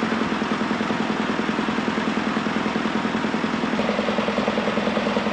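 Heavy diesel tractor engines idling with a steady, evenly pulsing beat. The engine tone changes about four seconds in.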